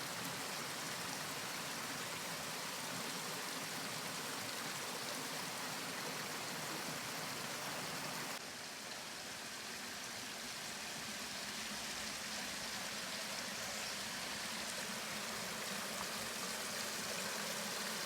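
Steady rushing of flowing stream water, an even wash of noise that dips slightly about eight seconds in.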